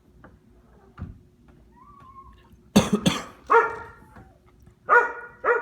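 Dog barking: a short faint whine, then about five sharp barks, two close together about three seconds in and more near the end.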